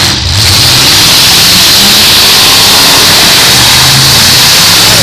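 Full-size demolition derby cars' engines running and revving together, very loud and steady, with the sound overdriven on the microphone.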